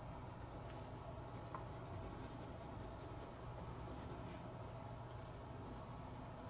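Graphite pencil shading on sketchbook paper: a faint, soft scratching of the lead over the paper, strongest in the middle of the stretch.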